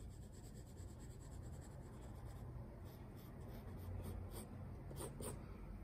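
Graphite pencil scratching on drawing paper in a run of short shading strokes, a few louder strokes about four to five seconds in.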